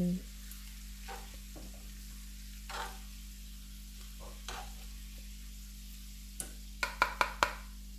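Metal spoon stirring sautéed carrot slices in a frying pan and scooping them into a ceramic bowl, over a low sizzle from the pan. A few soft scrapes, then a quick run of sharp spoon clinks against the bowl near the end.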